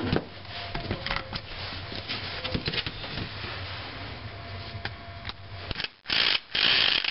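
Small tools clicking and tapping against a model nitro engine, then a cordless drill/driver whirring in two short bursts about six seconds in as it turns a hex bit in one of the screws holding a plate on the engine.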